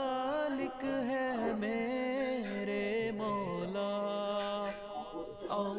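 Background nasheed: a single voice singing long, slowly gliding melodic notes, with no drums or other instruments.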